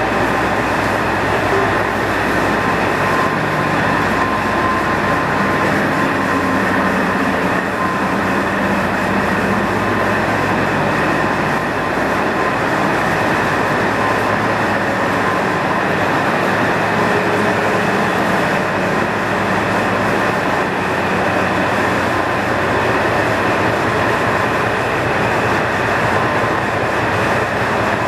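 KiHa 40 diesel railcar's engine idling steadily, heard close alongside the standing train.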